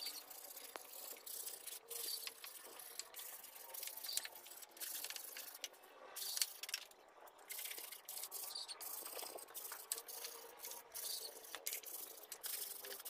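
Wooden frame being hand-sanded with sandpaper: repeated short rubbing strokes along the timber rails.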